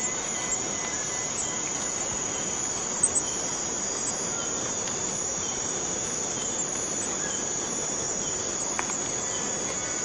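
Borneo rainforest cicadas calling in a dense, steady, high-pitched chorus, with a couple of brief ticks about three seconds in.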